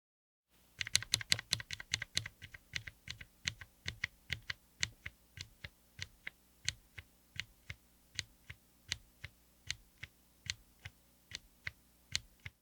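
Keebfront Bigwig heavy long-pole linear switches (HDPE and PBT housing) on an aluminium-cased 60% keyboard with an FR4 plate, keys bottoming out. It starts about half a second in with a quick run of keystrokes, then settles into single, evenly spaced presses about two to three a second.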